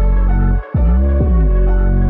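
Background music: a slow ambient electronic track with a deep bass and held notes, dropping out briefly about two-thirds of a second in.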